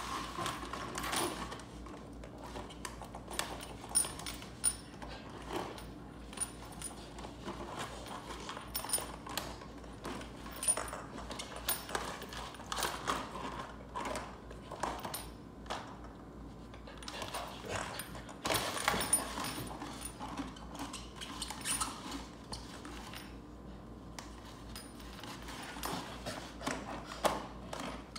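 A puppy mouthing and chewing the rim of a plastic ball-track cat toy: irregular clicks, taps and scrapes on the plastic, with small rattles from the toy.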